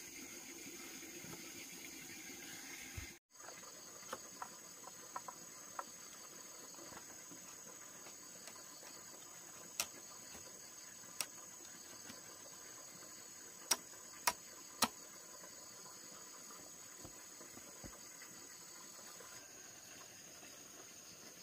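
Steady high-pitched insect chorus, crickets or cicadas, under a series of sharp knocks of bamboo on bamboo as rungs are fitted into the posts of a bamboo frame. Three of the knocks come loudest in quick succession about two thirds of the way through.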